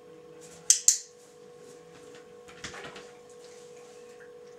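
A dog-training clicker clicks once about a second in: two sharp clicks in quick succession, press and release. A softer scuffle follows as the dog gets up from lying on the hard kitchen floor, over a steady faint hum.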